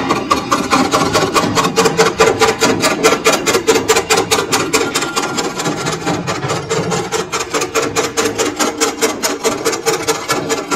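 Metal lathe turning the rim of a sheet-metal electric stove frame, the cutting tool scraping the spinning metal in a fast, even rhythm of about seven strokes a second.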